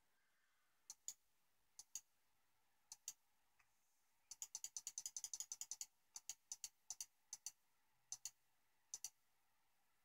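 Computer mouse button clicking. Press-and-release pairs come about once a second, with a rapid run of clicks from about four to six seconds in, then single pairs again.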